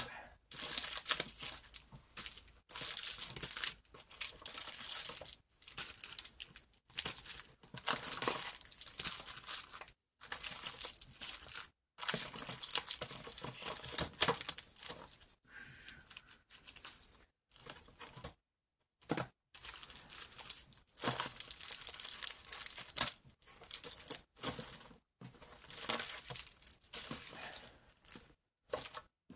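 Crinkling and rustling of crafting materials being handled and rummaged through, in irregular bursts with short silent gaps between them.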